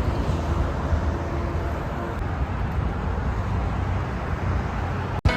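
Steady rumble and hiss of a moving car: road and engine noise. It cuts off suddenly near the end.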